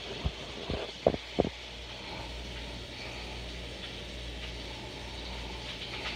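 Bacon frying in a pan: a few sharp pops in the first second and a half, then a steady sizzling hiss over a low hum.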